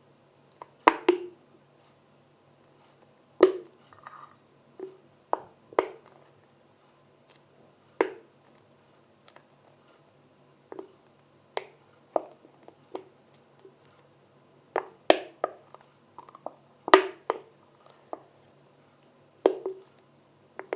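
A plastic bottle of thick coloured slime glue being squeezed and tapped over a bowl to get the glue out: irregular sharp clicks and squelches every second or two.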